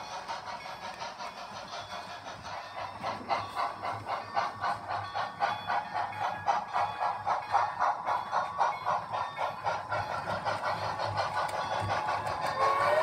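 HO scale model steam locomotives Southern 630 and 4501, double-headed, running with a fast, even chuffing that grows louder as they come closer. A steam whistle starts to blow just at the end.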